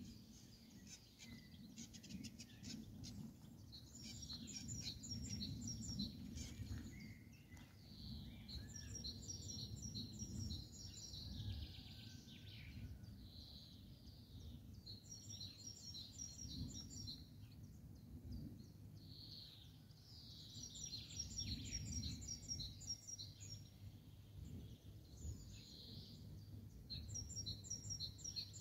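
Songbirds singing, a short run of rapid high notes repeating every five or six seconds, over a faint steady low rumble of outdoor background noise.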